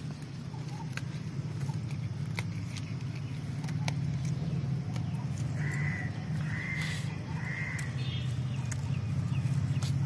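A crow cawing three times in quick succession about six seconds in, over a steady low hum. Scattered small clicks come from leaves being picked by hand.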